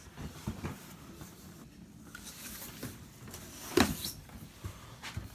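Handling of a plastic tool storage case: faint rustling and small clicks, with one sharper knock a little under four seconds in.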